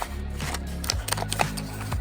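Background music with a bass line that changes about once a second, with light clicks over it.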